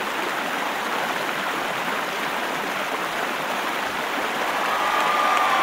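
Large concert audience making a steady wash of cheering and applause that grows louder, with whoops and shouts rising out of it near the end.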